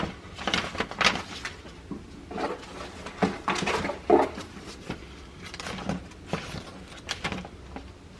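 Irregular clicks and light knocks, the sounds of things being handled, with one short pitched sound about four seconds in.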